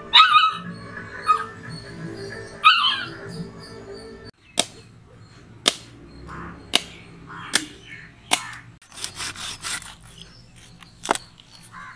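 Background music with two loud barks over it in the first few seconds; after the music cuts off, a knife scraping along a whole fish's scales on a wooden chopping block, in sharp short strokes about once a second with a quick run of strokes near the middle.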